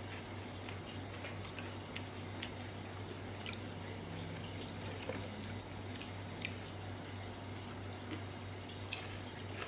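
Close-up chewing of soft fried banana-stem chips: scattered faint wet mouth clicks and small crunches a second or more apart, over a steady low electrical hum.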